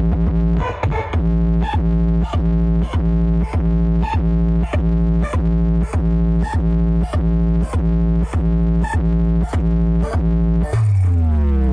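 Towering stacked carnival sound-system rig ("horeg") playing loud electronic music: a held synthesizer chord over heavy deep bass, pulsed by a beat about every 0.6 s. Near the end the beat stops and the tones slide down in a long falling sweep.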